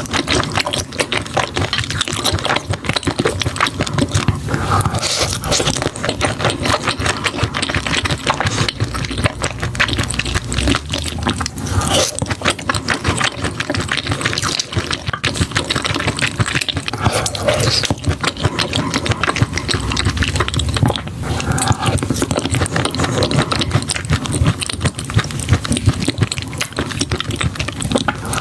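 Close-miked eating sounds: chewing, smacking and slurping seafood, a dense run of wet clicks and crackles.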